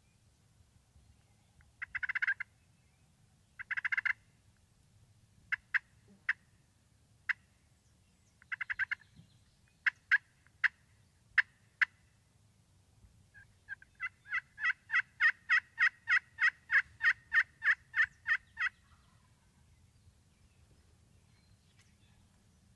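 Turkey calling: two short bursts of yelps and a scatter of single clucks, then a long run of about twenty evenly spaced yelps, about four a second, that builds in loudness and then stops.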